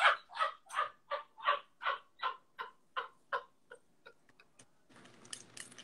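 Laughter: a long run of short ha's, about two or three a second, that fades away over four seconds or so. Quick, light clicks start near the end.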